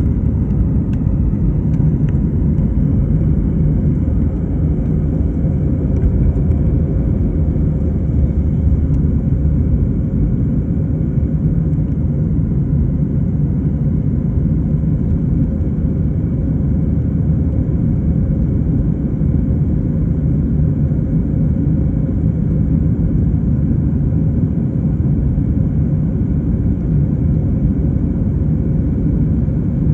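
Airliner engine and airflow noise heard from inside the passenger cabin during takeoff: a loud, steady low rumble with a faint steady hum.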